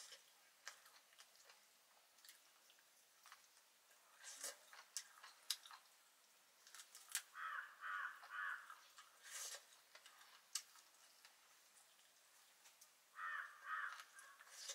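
Near silence broken by faint scattered clicks and taps. Two short runs of distant animal calls come through: about three in a row around the middle and two more near the end.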